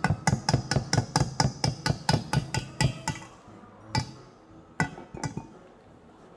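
A whisk being banged repeatedly against a metal mixing bowl to knock pancake batter off it. It gives a quick, even run of knocks, about four a second, for around three seconds. Three single knocks follow.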